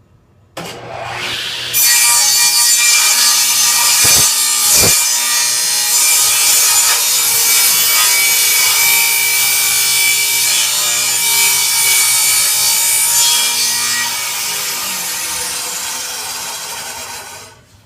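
A table saw starts up, then its blade cuts along the edge of a board for about twelve seconds, with two short knocks about four seconds in. It is a light jointing pass that takes about half a blade width off to trim the high spots. The cut eases off near the end and the saw stops.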